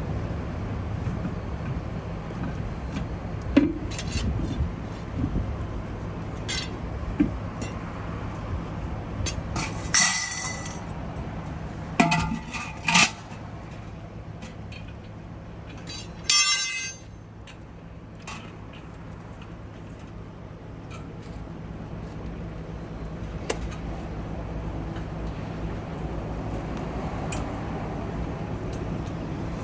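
Metal tools clinking and clanking while a tire is being changed, with a few louder short rattling bursts partway through, over a steady low hum.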